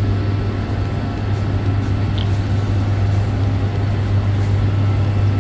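Steady, loud, low machinery hum with an even rushing noise over it.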